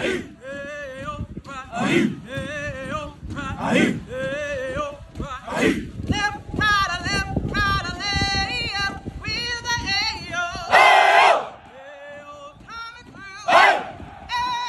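Military marching cadence sung by a platoon of Marine recruits: a lead voice sings lines and the marching group answers with loud shouted calls in unison, with a long loud shout about eleven seconds in.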